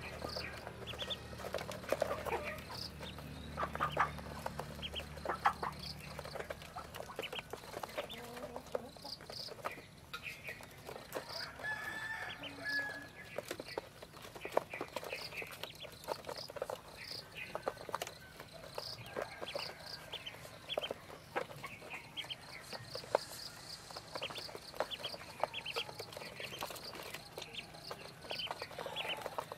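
A flock of ducklings peeping and pecking at crumb feed in a plastic feeder tray: many short high peeps mixed with quick clicks of bills on the dish. A low steady hum underneath stops about seven seconds in.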